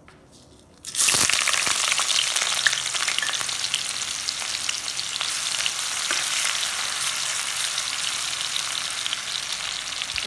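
Sliced onions and dried red chillies dropped into hot oil in a kadhai: a loud sizzle starts suddenly about a second in and keeps hissing and crackling as they fry.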